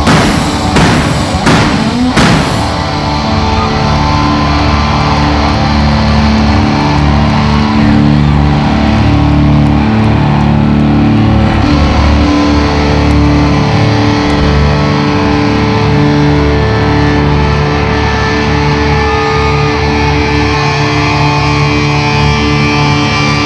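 Live rock band playing loud: a few heavy crashing hits in the first couple of seconds, then long held electric guitar chords over bass, with no singing.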